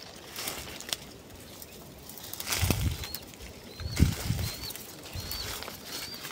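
Footsteps and rustling through dry, thorny scrub, with heavier steps about two and a half and four seconds in. In the second half a bird repeats a short high chirp five times, about once every 0.7 seconds.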